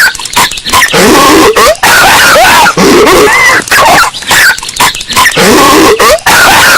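Patrick Star, the SpongeBob SquarePants cartoon character, in a looped coughing fit, amplified until it is very loud and distorted. Harsh, rasping coughs and wheezy gasps repeat over and over.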